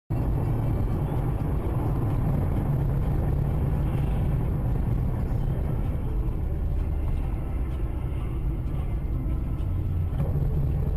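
Steady low rumble of road and engine noise from a car driving on a highway, heard from inside the cabin through a dashcam's microphone.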